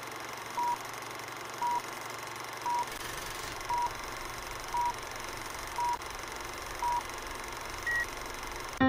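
Film-leader countdown beeps: a short beep once a second, seven times over a steady hiss, then a single higher-pitched beep near the end.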